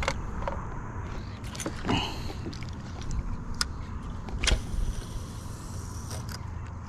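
A steady low rumble with a handful of short sharp clicks and knocks, the strongest about two seconds in and again about four and a half seconds in.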